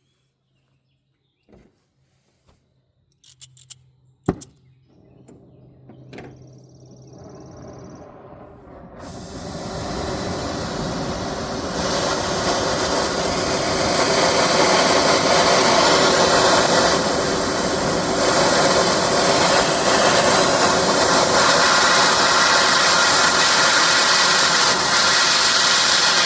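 Gas cutting torch being lit: a sharp click about four seconds in, then the hiss of gas and flame builds over several seconds into a steady loud rushing roar that cuts off suddenly at the end.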